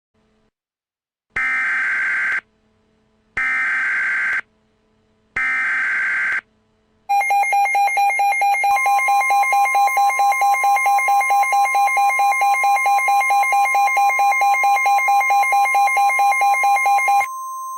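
Emergency Alert System header: three short bursts of data tones, each about a second long and a second apart. Then a loud, rapidly pulsing alert tone starts, and a steady single-pitch alert tone comes in under it. The pulsing stops shortly before the end, leaving the steady tone alone and quieter.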